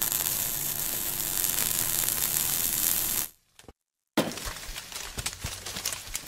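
Logo-intro sound effects: a loud, steady crackling hiss fades out about three seconds in and leaves a moment of dead silence. A sudden hit follows, then more crackling with scattered sharp clicks.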